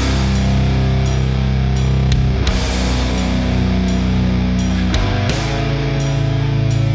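Distorted electric guitar through a Peavey 5150 signature amp's crunch channel with no boost pedal, played as heavy-metal power chords that are held and changed every few seconds. Drum hits mark the rhythm.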